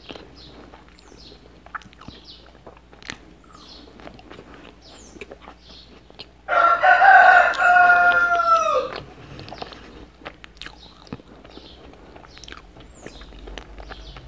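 A rooster crows once, loud, starting about six and a half seconds in and lasting some two and a half seconds, its pitch dropping at the end. Before and after it are faint clicks and smacks of eating.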